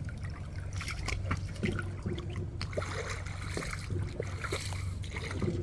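Water trickling and lapping with small splashes, over a steady low hum.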